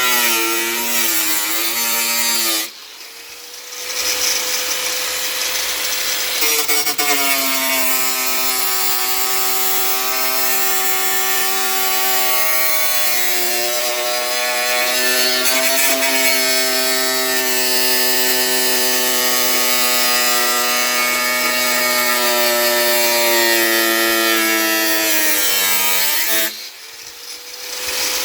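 Power saw cutting through sheet metal, its motor whine dipping in pitch under load, easing off briefly twice.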